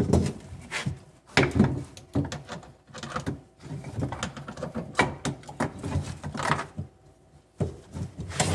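Hand pop-rivet gun being worked to set rivets in a steel plate: a string of irregular sharp clicks and knocks of the gun's jaws and a wooden block pressed down on it against the metal.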